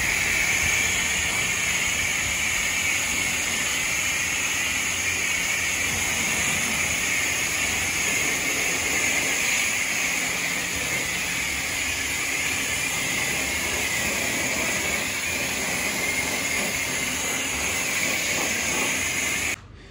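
Water spraying in a steady hiss, washing down a pickup truck.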